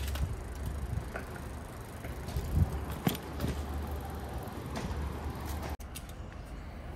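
A bicycle being ridden over pavement: a steady wind rumble with rattling clicks and knocks from the bike. A little before the end it cuts to quieter outdoor background.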